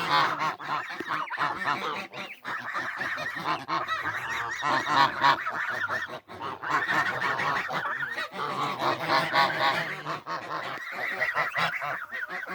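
A flock of domestic geese honking, many calls overlapping without let-up, with a brief lull about six seconds in.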